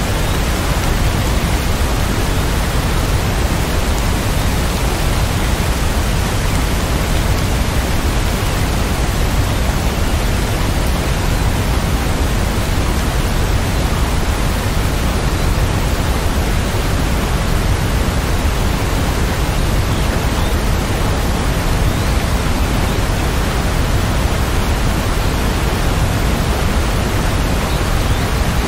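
Steady heavy rain: a dense, even hiss with no single drops or thunder standing out.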